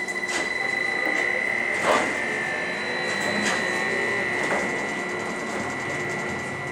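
Interior of a moving trolleybus: a steady high-pitched whine from its electric drive over the rumble of the ride, with a few knocks and rattles from the body, the loudest about two seconds in.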